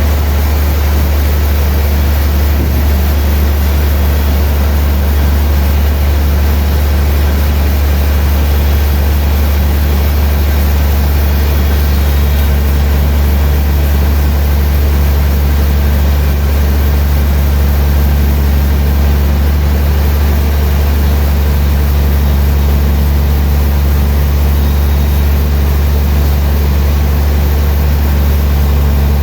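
Sawmill machinery running steadily: a loud, unchanging low engine drone.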